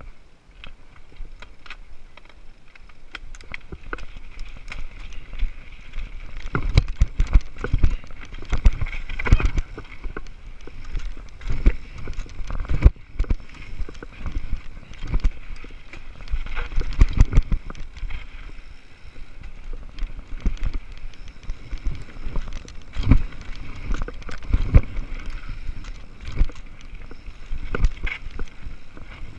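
Mountain bike descending a dirt trail: the tyres roll over dirt while the bike keeps knocking and rattling over bumps. It grows louder over the first several seconds as speed builds.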